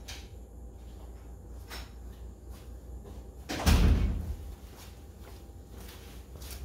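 Someone moving about the workshop: faint scattered knocks and clicks, and one heavy low thump a little past halfway, the loudest sound.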